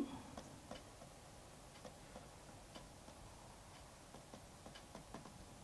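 Near silence with faint, scattered clicks of a stylus tapping a writing tablet as words are handwritten.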